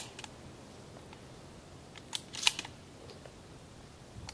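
Faint crackling clicks, like dry leaves being stepped on or shifted: one right at the start and a short cluster about two and a half seconds in. No shot is fired.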